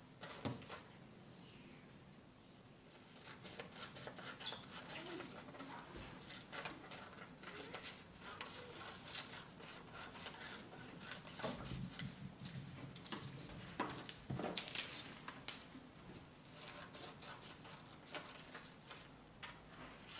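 Small scissors snipping through printer paper, with paper rustling as it is turned in the hands: a faint, irregular run of snips, sparse at first and steadier from about three seconds in.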